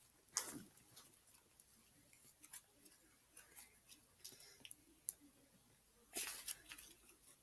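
Butter slime being squished and stretched by hand: faint, irregular sticky clicks and squelches, with a louder run of squishes about six seconds in.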